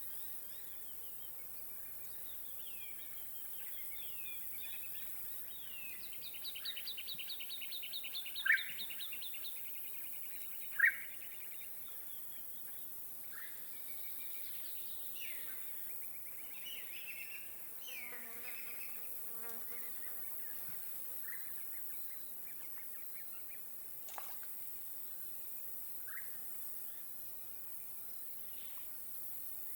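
Lakeside bird and insect chorus: a steady high hiss of insects under many short bird chirps and calls. A rapid trill runs about six to ten seconds in, with two loud sharp calls near its end, and a lower, wavering, harsher call sounds about two-thirds of the way through.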